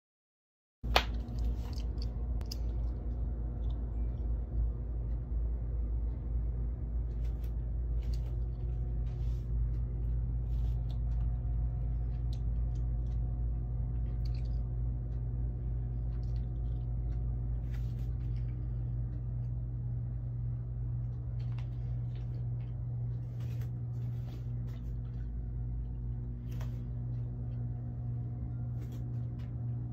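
Steady low room hum holding several fixed tones, under scattered light clicks and rustles of handling; it starts abruptly about a second in.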